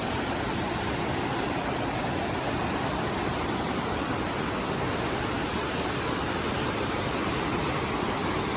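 Steady roar of a waterfall in heavy flow, swollen by rain.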